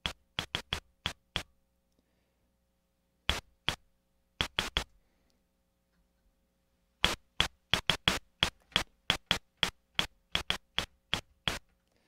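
Akai Rhythm Wolf analog drum machine's percussion voice, resonant filters pinged with noise, playing short clicky hits with a high ring. The hits come in scattered small groups, then in a quick, fairly steady run through the second half.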